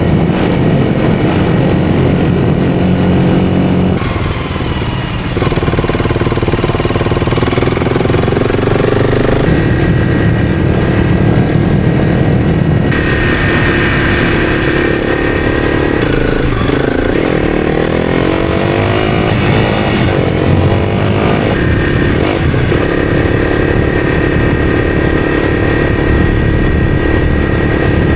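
Honda CRF300's single-cylinder engine under way through deep sand, its revs rising and falling as the throttle is worked, with a brief drop off the throttle about four seconds in.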